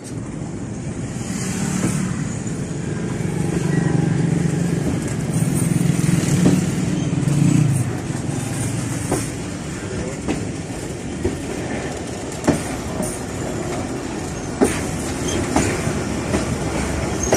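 Passenger train running at speed, heard from aboard: a steady rumble of wheels on the track, heavier over the first half. In the second half, sharp clicks come roughly once a second as the wheels cross rail joints.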